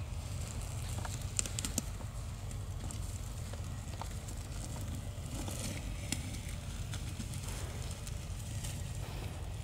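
Faint crackling and rustling of cut grass and plastic as macaques pick through greens, over a steady low outdoor rumble.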